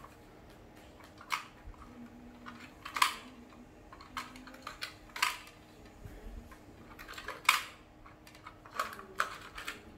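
Hard plastic parts of a toy airplane playset clicking and knocking as a child handles them: scattered sharp clicks, the loudest roughly every two seconds, with lighter ticks in between.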